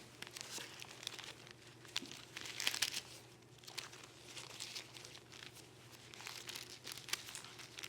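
Bible pages rustling as they are leafed through, in several soft papery swishes, the loudest about three seconds in, while Philippians chapter 2 is looked up.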